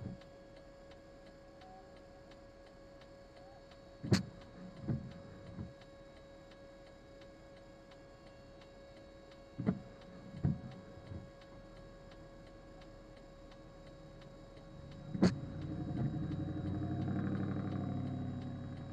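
Windshield wipers on an intermittent setting. Each cycle is a sharp click followed by two softer thumps of the blades, three cycles about five and a half seconds apart. Over the last few seconds a passing vehicle rises and fades.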